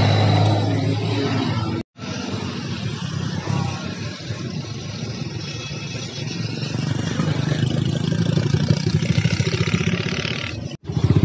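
Motorcycle engine running close by amid road traffic, a steady engine hum with passing vehicles, broken by two brief gaps.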